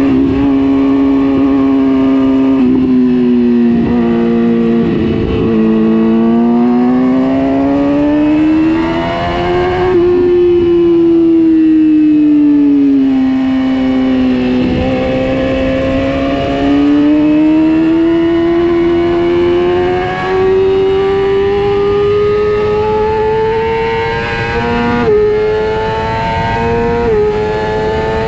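Racing motorcycle engine heard onboard at speed. Its pitch falls and rises with the throttle through a run of corners, then climbs steadily under hard acceleration, with two quick upshifts near the end.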